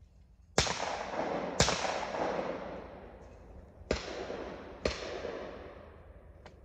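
Two pairs of shotgun shots. A loud pair comes about a second apart, then about three seconds later a quieter pair, also about a second apart. Each report trails off in a long rolling echo.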